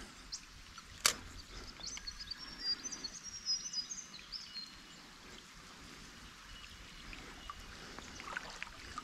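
Faint outdoor ambience by the water, with one sharp click about a second in and a scatter of short high chirps between about two and five seconds.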